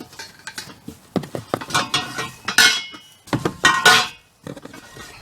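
Metal swing set parts knocking and clinking against each other as they are handled, several sharp clanks with brief metallic ringing, the loudest about two and a half and four seconds in.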